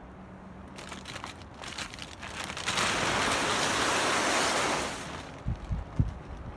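Plastic tarp rustling and crinkling. Scattered crackles build into a loud, steady rustle for about two seconds, followed by a few dull thumps.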